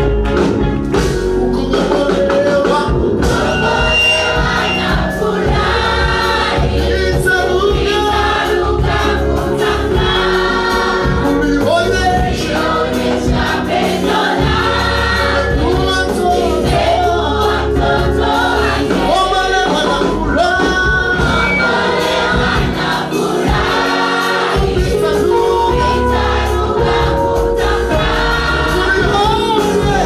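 Mixed choir of men and women singing a Swahili gospel hymn with instrumental backing.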